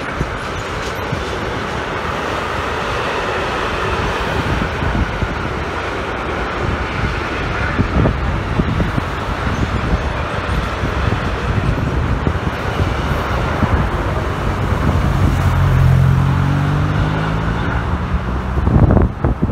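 Freight train wagons rolling past on the track, a steady rumble of wheels on rail. Near the end, heavy wind gusts buffet the microphone.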